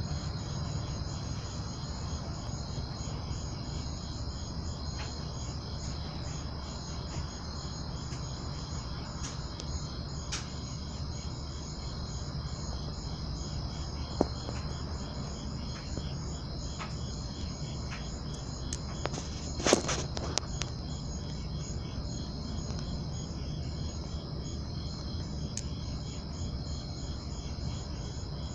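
A steady, high chorus of chirping crickets goes on without a break. It does not come from the camel cricket itself, which cannot chirp. A low rumble sits underneath, with scattered faint clicks and a louder cluster of clicks about twenty seconds in.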